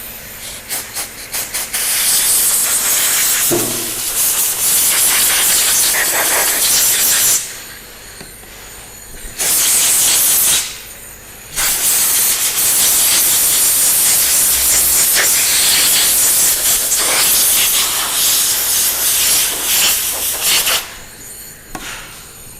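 A pressurised cleaning jet hissing as it is used on a headlight. Short spurts at first, then three long blasts with brief pauses, the last running about nine seconds.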